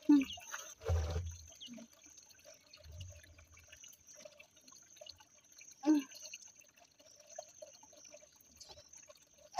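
A full plastic jerrycan of water being heaved up onto a woman's head: short strained vocal sounds at the start and again about six seconds in, with a dull knock about a second in. Faint water sounds and a thin, steady high-pitched tone lie underneath.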